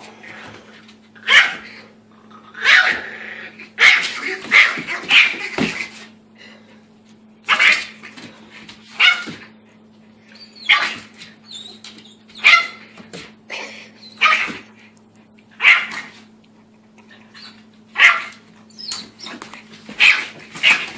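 Small puppy giving sharp, high-pitched yapping barks, one every second or two with a few short pauses: warning barks as it guards its food bowl from a bigger dog.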